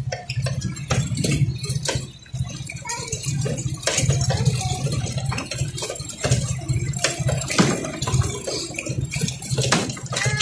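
Motorcycle riding over a rough gravel road: the engine's low steady running under frequent rattles and knocks from the bumps.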